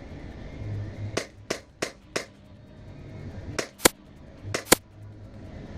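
Airsoft guns firing single shots: eight sharp pops, a quick run of four about a second in, then two pairs of shots in the second half.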